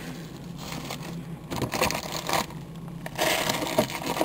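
Plastic food packaging rustling and crinkling as a hand rummages through a refrigerator shelf, in irregular bursts that grow louder near the end.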